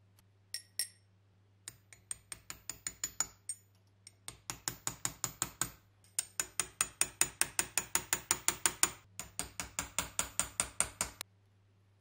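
Hammer tapping a steel punch to drive a stuck Zippo lighter's inner case out of its bottom case: quick metallic taps about five a second in four runs with short pauses, after two sharp clinks near the start.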